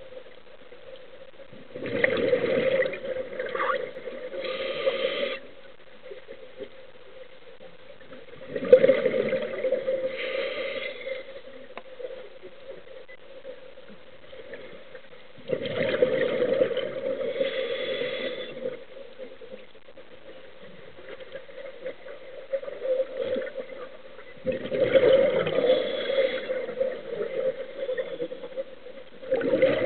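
Scuba diver's exhaled air bubbling out of the regulator, heard underwater in four bursts of three to four seconds each, a few seconds apart, with a low steady hiss between breaths.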